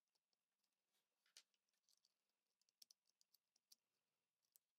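Near silence, with faint scattered clicks and small taps as fingers press on and handle a smartphone's mainboard and frame during reassembly.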